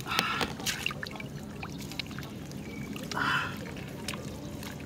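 Hands splashing and scooping in shallow muddy water while digging into a mud bank, with water trickling and a cluster of sharp wet clicks in the first second. A brief loud vocal sound cuts in about three seconds in.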